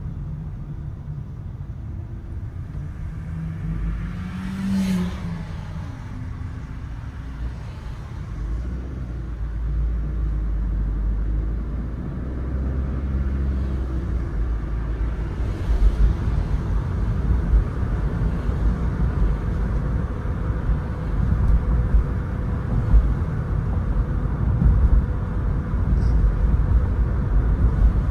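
Road and engine noise inside a moving car's cabin: a continuous low rumble that grows louder about a third of the way in and stays louder, with a brief extra sound about four to five seconds in.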